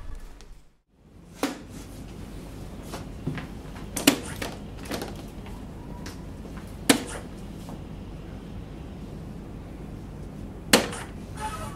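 Several short, sharp knocks a few seconds apart, soft-tip darts striking a Phoenix electronic dartboard, over a steady low room hum.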